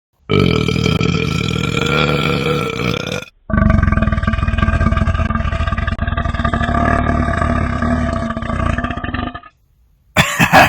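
A man's two long, deep belches, the first about three seconds long and the second about six, with a brief break between them. Another loud sound begins just before the end.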